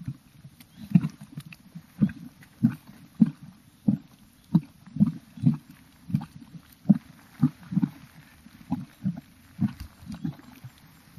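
Geothermal mud pool bubbling: thick, irregular low plops and gloops as gas bursts through the hot mud, one or two a second.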